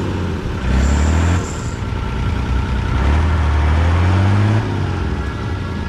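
Off-road truck-trial vehicle's engine revving in bursts, a short burst about a second in and a longer one near the middle that climbs in pitch, with the vehicle tipped over on its side.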